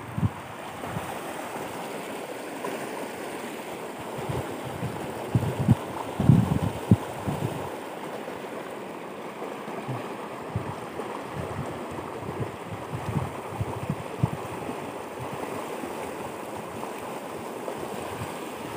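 A shallow river running steadily over rocks, with a cluster of low thumps and knocks from handling about a third of the way in and a few smaller bumps later.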